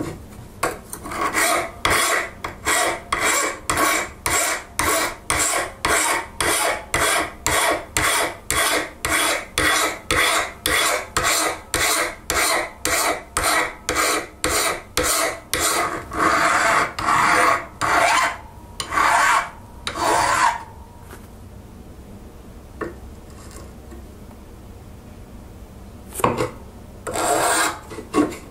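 A flat hand file rasping back and forth across a forged steel piece, in quick even strokes about two a second, then a few slower, longer strokes. It stops for several seconds and resumes with a few strokes near the end.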